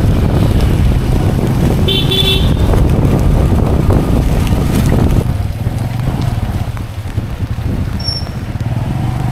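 Riding pillion on a motorcycle taxi: the engine runs under wind rushing over the microphone, with a short horn toot about two seconds in. A little after five seconds the wind noise drops as the ride slows, leaving the engine running more quietly.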